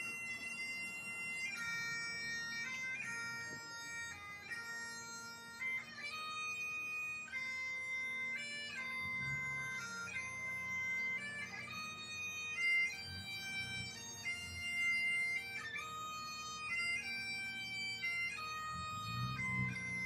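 Bagpipes playing a slow melody of held notes over a steady drone, starting suddenly.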